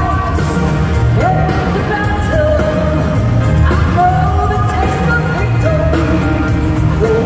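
A man and a woman singing a country duet live with a full band, heard from within an arena crowd, with held notes that slide up into each phrase.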